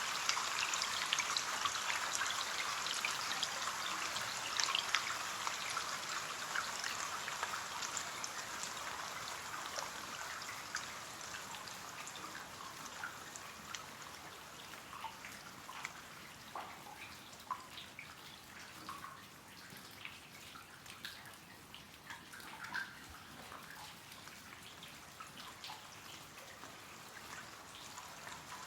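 Rain on a window pane: a steady hiss of rain that gradually fades over the first half, leaving scattered individual drops tapping and dripping.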